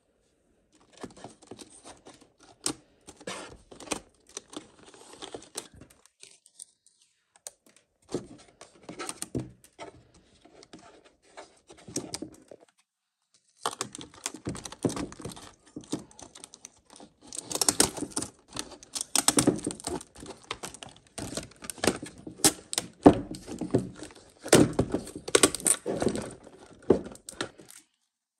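Hands handling and opening a toy's packaging: irregular tapping, clicking and rustling, pausing twice and getting busier and louder in the second half.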